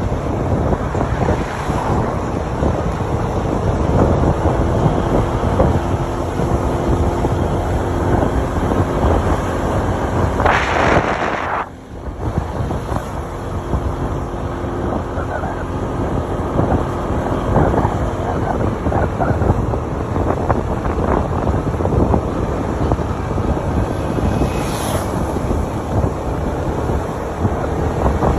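Wind buffeting the microphone of a moving vehicle, with a steady engine drone underneath. About ten seconds in there is a brief hissing rush, then the level dips for a moment.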